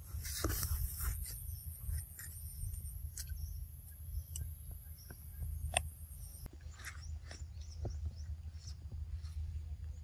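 Outdoor ambience with a steady low rumble on the microphone and a rustling burst as the camera swings round in the first second. Scattered light clicks run throughout, and a steady high-pitched hum cuts off about two-thirds of the way through.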